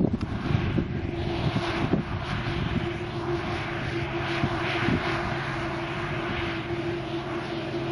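Claas Medion 340 combine harvester running under load while cutting wheat: a steady mechanical drone with a constant mid-pitched hum and an even hiss from the working machine.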